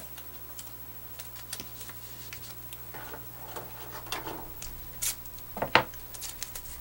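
Blue painter's tape being pulled off the roll and torn into strips, with scattered light clicks and taps, and one sharp click near the end.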